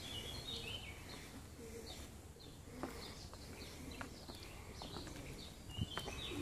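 Faint chirping of small songbirds: many short, high chirps scattered throughout, with a couple of soft knocks.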